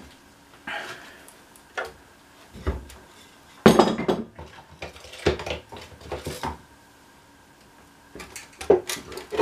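Open-end wrench clinking and clanking against a stubborn 9/16 bolt and the steel deck of a 1953 push lawnmower. The knocks come at uneven intervals, with the loudest clank about four seconds in and a quick run of clinks near the end.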